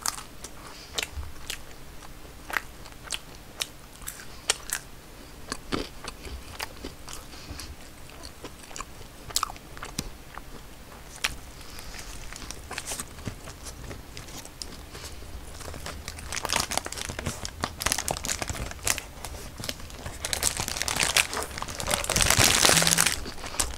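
Close-miked eating: French fries and a Burger King burger being bitten and chewed, with many small crunching clicks. The crunching grows denser and louder near the end.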